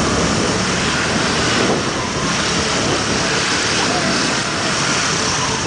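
Motor scooter running steadily while riding along, with a steady rush of wind and road noise over the engine.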